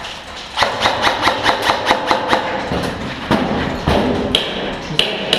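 Airsoft guns shooting: a quick run of about nine sharp cracks, about five a second, then two single cracks near the end.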